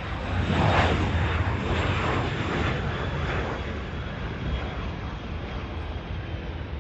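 Jet engine noise from a Boeing 737 freighter just after touchdown on the runway, loudest about a second in and easing off slowly as the aircraft rolls away.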